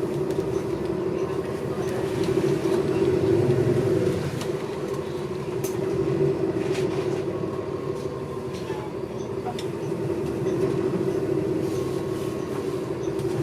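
Inside a moving city transit bus: a steady drone from the engine and drivetrain with road noise, swelling and easing slightly as the bus drives on, with a few faint rattles and clicks.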